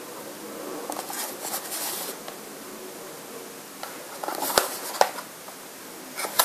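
A small cardboard box being turned over in the hands: soft rubbing against the cardboard, then two sharp taps a little past the middle and a few more near the end.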